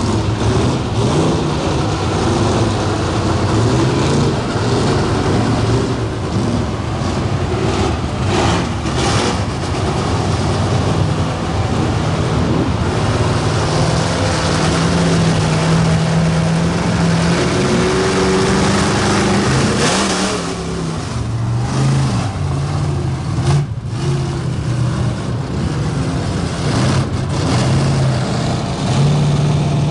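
Engines of lifted four-wheel-drive mud trucks running and revving under load as they churn through deep mud, the pitch rising and falling repeatedly. The engines are loudest and held highest about halfway through, then dip briefly before picking up again.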